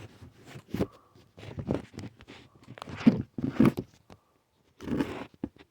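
Handling noise: irregular clicks, light knocks and brief scrapes of small parts and tools being moved about on a work surface.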